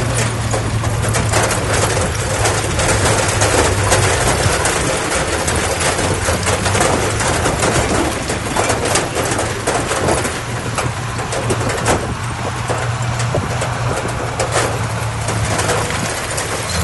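Heavy earthmoving machinery's diesel engine running steadily, with a constant low drone and frequent clanks and rattles.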